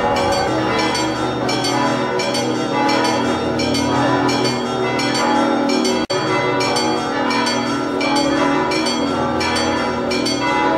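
Church bells pealing, several bells struck in quick, continuous succession with their tones ringing on, broken by a sudden split-second gap about six seconds in.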